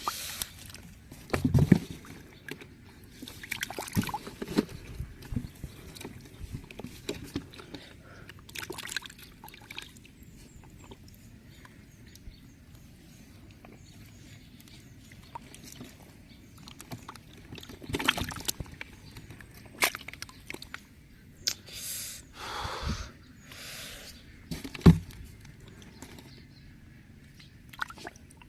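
Water splashing and sloshing in irregular bursts, with scattered knocks.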